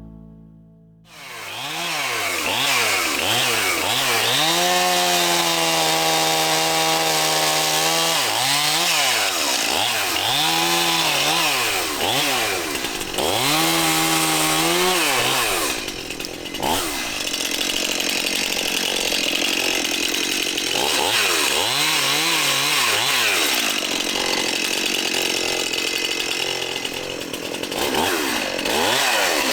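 A chainsaw revving up and down over and over, held at high speed for a few seconds at a time between the revs.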